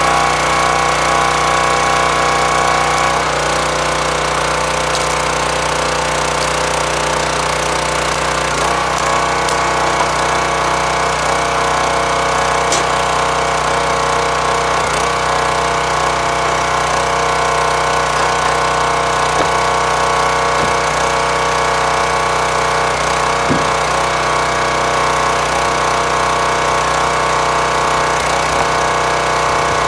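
Small gas engine of a hydraulic log splitter running steadily, its note shifting slightly a few seconds in as the hydraulic ram works a round of ash through a four-way wedge. A few light knocks of wood are heard over the engine.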